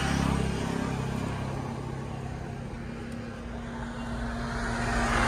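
A motor vehicle's engine running with a steady low hum that grows louder near the end.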